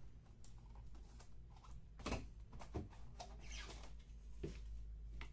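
Faint handling noises of trading cards and rigid plastic top loaders: scattered soft clicks and taps, with a brief sliding rustle about three and a half seconds in.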